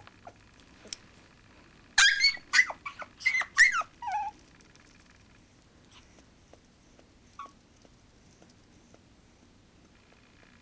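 Chihuahua puppy yipping: a quick run of high-pitched yelps, each falling in pitch, about two seconds in, then one faint short yelp later. The puppy is protesting being tied on a leash it is not yet used to.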